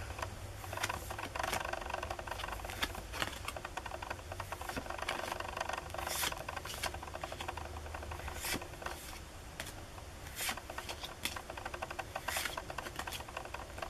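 Trading cards being slid and flipped through by hand: a run of soft scrapes and clicks of card against card, a few of them sharper, over a low steady hum.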